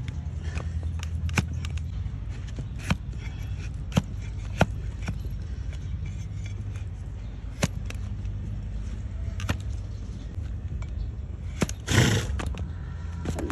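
A donkey's hard hoof being pared with a hoof-trimming push blade: scattered sharp clicks as the blade bites into the horn, and one louder scrape about twelve seconds in, over a steady low hum.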